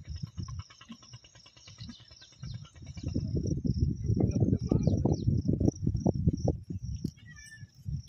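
Insects chirping in a steady, high, continuous trill, with rapid even ticking in the first few seconds. A loud, uneven low rumble rises about three seconds in and dies down near the end.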